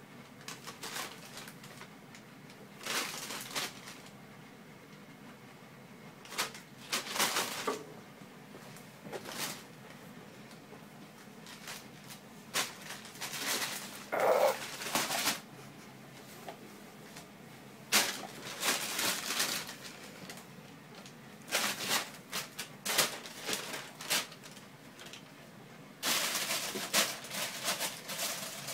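Thin plastic shopping bag crinkling and rustling in irregular bursts as a kitten wriggles and plays inside it, with one short cry about halfway through.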